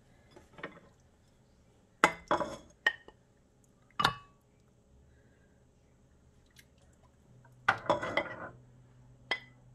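Metal ladle clinking against a ceramic soup bowl as lentil soup is ladled in: a few sharp ringing clinks, then a longer clatter near the end.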